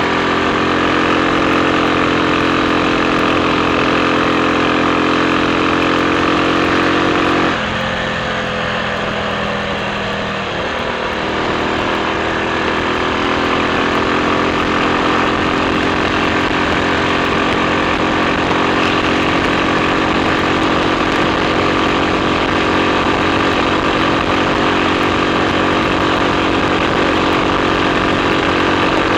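Triumph Sports Cub's single-cylinder four-stroke engine running steadily under way. About seven and a half seconds in the engine note drops and changes, then settles back to a steady note a few seconds later.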